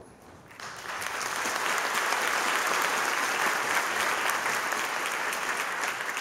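Audience applauding, starting suddenly about half a second in, holding steady, then thinning out near the end.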